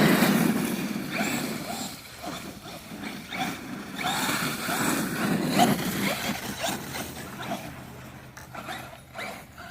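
Brushless RC monster truck driving, its motor whining up and down in short bursts with tyre noise, loudest at the start and fading toward the end.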